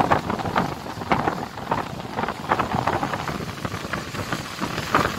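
Wind rushing at a moving car on a wet road, with road noise and irregular gusts buffeting the microphone.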